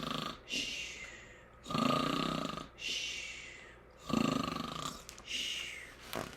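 A person imitating a bear's snoring: rattling snores on the in-breath, each followed by a hissing out-breath, repeating about every two seconds, three times.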